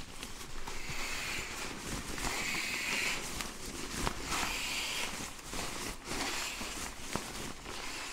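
Nylon pump sack being squeezed and rolled down to push air into a Therm-A-Rest NeoAir XTherm Max inflatable sleeping pad: crinkling, rustling fabric in several separate pushes.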